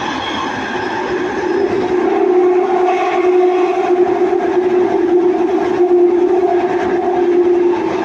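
London Underground Jubilee Line 1996-stock train running at steady speed through a tunnel, heard from inside the carriage: a continuous rumble of wheels on rail with a steady humming tone, growing a little louder about two seconds in.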